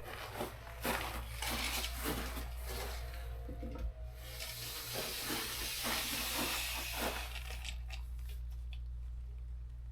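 Faint hiss with light scattered clicks and clatter from handling, over a steady low hum; the hiss stops about eight seconds in.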